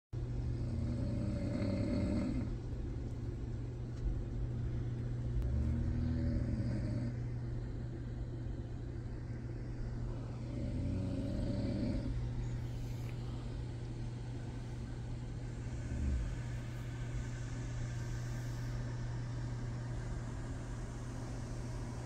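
A woman snoring in her sleep, slow rhythmic snores about every five seconds, three clear ones then a fainter one. A steady low hum runs underneath.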